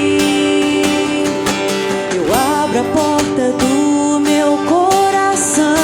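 Live band music carried by strummed acoustic guitars, with a lead melody line that slides in pitch twice.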